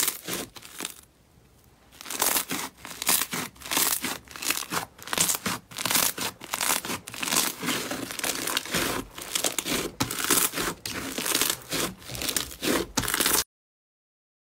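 Floam (foam-bead) slime being kneaded and squeezed by hand, giving a dense, irregular run of crackling, crunching clicks. There is a short quiet pause about a second in, and the sound cuts off suddenly near the end.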